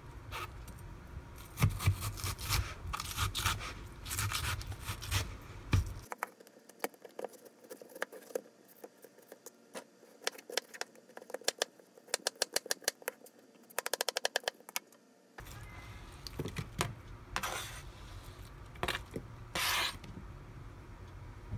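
A knife cutting and scraping through watermelon flesh on a plastic cutting board, with sharp clicks as the blade meets the board and a fast run of taps a little past the middle.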